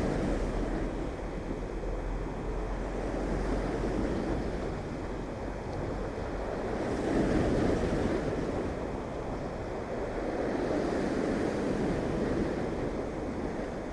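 Sea waves breaking and washing on the shore, surging louder about seven seconds in and again near the end, with wind on the microphone.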